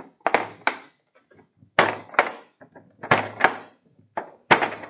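Metal latch clips on the plastic housing of an LED vapor tight light fixture being flipped by hand one after another: four pairs of sharp plastic-and-metal clacks, the two in each pair about a third of a second apart.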